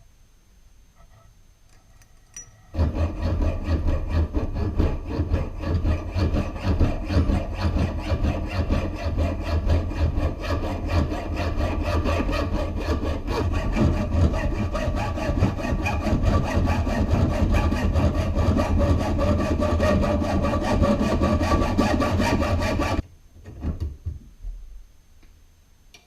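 A motor-driven machine tool cutting metal: a loud, fast, even rasping over a steady low motor hum. It starts abruptly about three seconds in and stops abruptly near the end.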